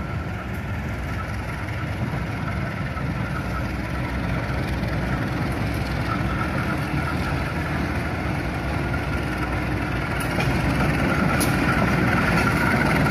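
Diesel locomotive of a KAI passenger train running on the track, its engine and wheel rumble growing steadily louder as it approaches and passes, and getting louder again about ten seconds in.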